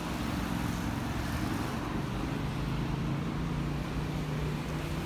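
Road traffic on a highway: a steady low engine hum over the hiss of road noise.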